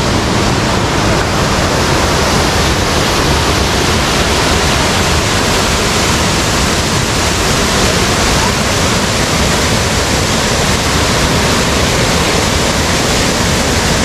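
Waterfall and rocky stream rapids rushing close by: a loud, steady rush of water.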